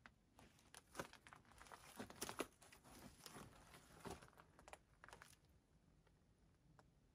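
Faint rustling and scattered light clicks of clothing and hand-held gear being moved, clustered in the first five seconds or so.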